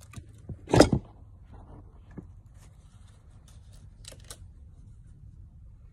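Hands handling a solution hose and tools: a loud knock about a second in, then a few light clicks and faint rustling.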